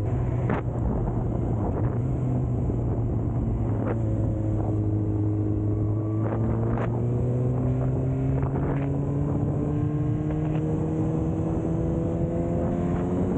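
Suzuki GSX-R600's inline-four engine running under way, its note holding steady and then rising slowly from about halfway as the bike gathers speed, with wind noise on the microphone and a few short sharp knocks.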